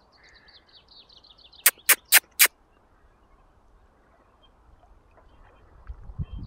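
A faint, high, slightly falling bird trill, then four sharp clicks in quick succession about two seconds in, the loudest sounds here; a low rumble rises near the end.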